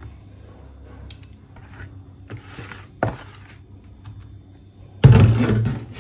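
Soft handling sounds as zucchini slices are laid by hand onto potato slices in a glass baking dish, with a sharp tap about three seconds in. Near the end comes a louder knock and rustle lasting about a second.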